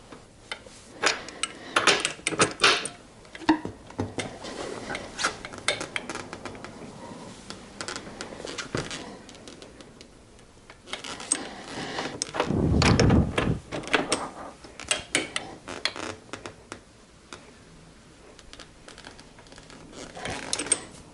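Metallic clicks and clanks of a torque wrench and socket being fitted and worked on a motorcycle's rear axle nut, torquing it to 95 foot-pounds, with a heavier clunking stretch about halfway through.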